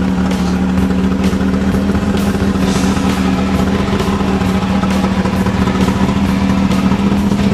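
Unlimited Sportsman desert race buggy's engine running hard at steady, high revs, with frequent knocks and rattles from the chassis.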